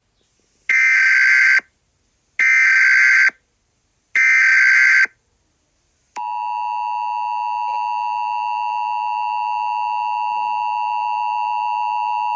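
Emergency Alert System tones: three short bursts of the SAME digital data header, each under a second, then about six seconds in the steady two-tone 853/960 Hz attention signal starts and holds.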